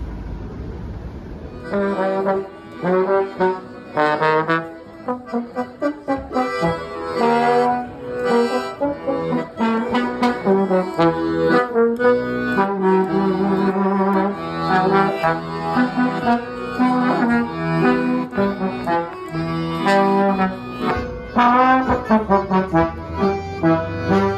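Lively instrumental music with a quick, even beat comes in about two seconds in, after a short stretch of low rumble.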